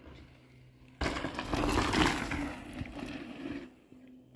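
Mountain bike hitting the dirt trail about a second in and rolling past, with its tyres grinding over the dirt and a clattering rattle. The sound is loud at first and fades out after a couple of seconds.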